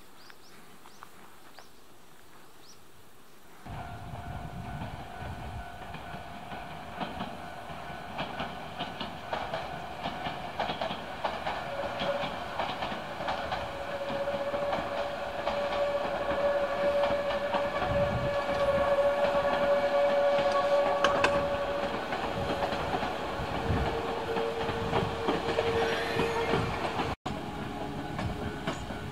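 Maroon Nose Electric Railway commuter train running past on its track: a steady whine over a rolling rumble, with wheel clacks over the rail joints, building up to its loudest a little after the middle. The first few seconds hold only faint outdoor background before the train is heard.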